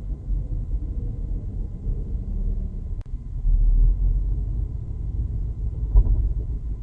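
Low rumble of a 2016 Chevrolet SS six-speed manual's drivetrain heard from inside the cabin, swelling louder for a moment about three and a half seconds in, with a sharp thump about six seconds in. This is the kind of bouncing-thumping driveline noise the owner is trying to pin down.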